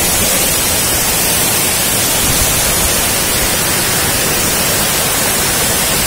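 A tall waterfall's water falling into its pool: a loud, steady rushing noise.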